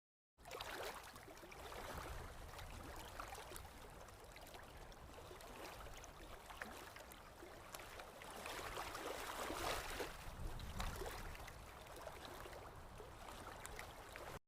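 Faint running water of a small stream, a steady babble with irregular little splashes and a few swells. It starts and stops abruptly.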